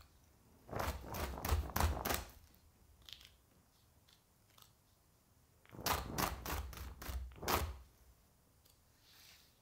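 A baking tray of freshly piped macaron shells rapped on the countertop in two quick series of about six knocks each, a few seconds apart. This is done to knock air bubbles out of the batter.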